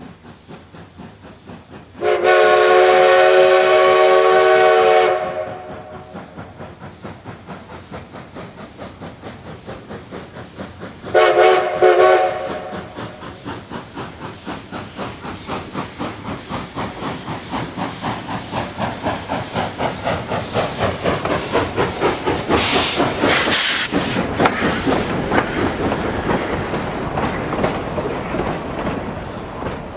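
Narrow-gauge steam locomotive's whistle sounds two blasts, a long one of about three seconds and then a shorter one, as the train starts away. Its exhaust then chuffs in a steady beat of about three a second, growing louder as it draws near, with a loud burst of steam hiss about three quarters of the way through. Passenger cars roll past near the end.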